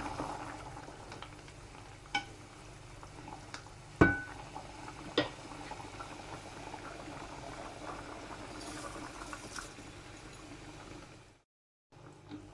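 A pot of food bubbling steadily as it simmers, with a few sharp clinks or knocks, the loudest about four seconds in. The sound breaks off for half a second near the end.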